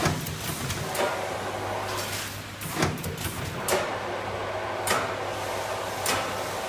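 Vertical form-fill-seal packaging machine running: a steady hum under sharp clicks and knocks about once a second as it cycles through bags.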